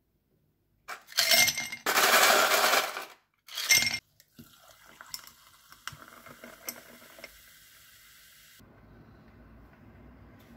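Sparkling water poured over ice cubes in a tall glass tumbler. Loud splashing and clinking of ice against glass for about three seconds, then a softer fizz with small pops and crackles, which cuts off about two seconds before the end.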